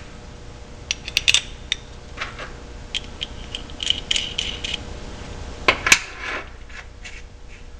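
Steel bolt, nut and bracket tabs being assembled by hand, making small metallic clicks and clinks. A run of light ticks comes as the nut is spun onto the bolt's threads. Two sharper clinks come about six seconds in as the assembly is set down on the steel table.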